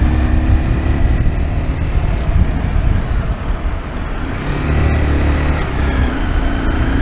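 Motorcycle engine running while riding, with wind rushing over the microphone. The engine note is strongest at the start, eases through the middle, and comes back up about four and a half seconds in.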